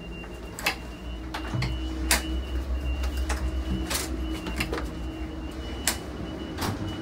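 Interior of a moving bilevel passenger rail car: the train's steady low rumble with a faint steady high whine, broken by sharp clicks and knocks at irregular intervals.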